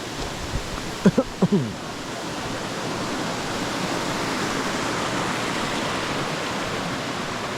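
Waterfall rushing steadily over rocks into pools, swelling slightly louder after about two seconds.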